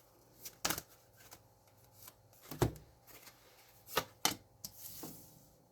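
Cards being shuffled and handled while one is drawn: scattered sharp flicks and slaps of card stock, the loudest about two and a half seconds in and around four seconds in.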